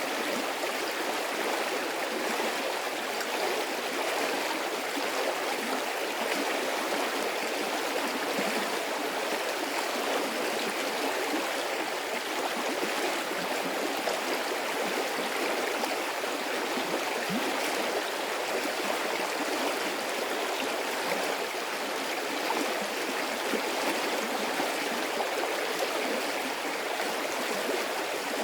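A medium-sized stream of water flowing and splashing steadily, a continuous even rush with a fine bubbling texture.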